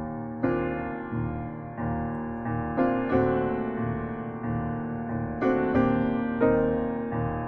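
Slow piano music: chords struck every second or so and left to ring and fade.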